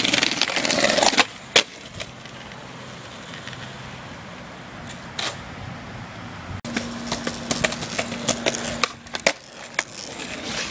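Skateboard wheels rolling on concrete, with several sharp clacks of the board hitting the ground, a loud burst of rolling and clacks about a second long at the start and a run of clacks in the last few seconds.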